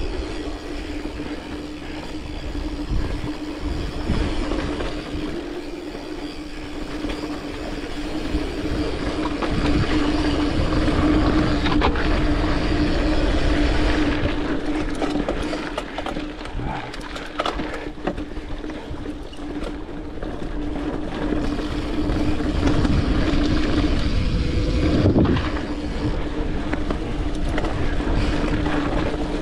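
Mountain bike being ridden along a dirt trail: continuous rumble and rattle of the tyres and bike over the ground, with a steady hum under it and a few sharper knocks.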